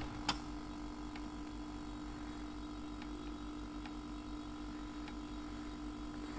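Steady electrical hum of a heat-pump dryer compressor running on mains power, with one sharp click about a third of a second in and a few faint clicks later from the buttons of a plug-in energy meter.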